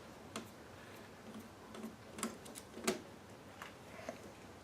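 Faint, irregular clicks and taps of a screwdriver and small metal parts against the radio's sheet-metal chassis while a screw is worked out, about half a dozen in all, the sharpest a little before three seconds in.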